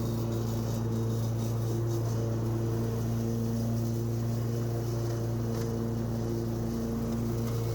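Husqvarna mower engine running steadily under load while mowing, a constant low hum with light scattered ticking over it.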